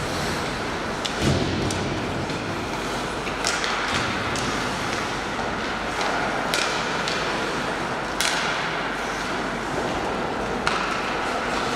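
Ice hockey play: skates scraping the ice under a steady hiss, with a string of sharp clacks of sticks and puck, the strongest about a second in and again past the middle.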